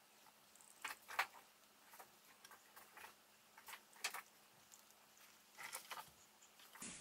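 Faint, irregular soft clicks and pats of a makeup sponge being dabbed over the face to blend CC cream, the loudest about a second in and again about four seconds in.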